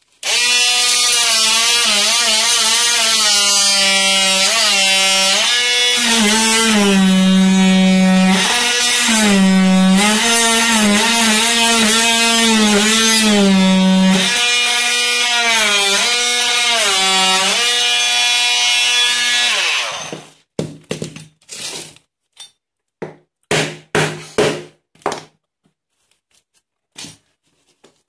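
Cordless oscillating multi-tool (Vityaz VMR-12 renovator) cutting rusted sheet steel with a loud buzzing whine. Its pitch sags several times as the blade is pressed into the metal, then recovers. It stops about twenty seconds in, followed by scattered short clicks and scrapes as the cut metal is worked by hand.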